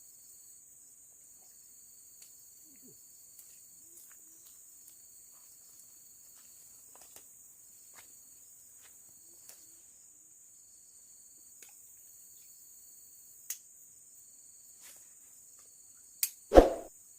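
Forest insects, crickets or similar, keep up a steady high-pitched drone, with a fainter pulsing trill above it and scattered faint clicks. Near the end come a sharp click and then a loud, short thump.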